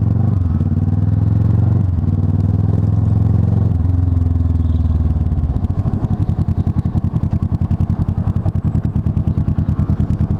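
Kawasaki ER-6n's parallel-twin engine heard from the rider's seat, running strongly under throttle for the first half, then dropping to a lower, pulsing note about halfway through as the rider eases off.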